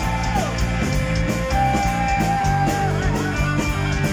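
Heavy metal band playing live: electric guitar over a full band, with long held high notes carrying the melody.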